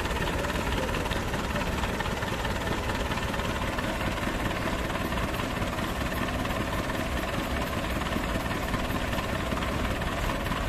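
Two diesel tractors, an Escort 335 and a Hindustan, running steadily together as they pull against each other.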